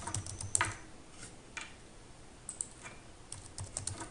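Computer keyboard being typed in short bursts of a few quick keystrokes, with pauses between the bursts, as a password is entered.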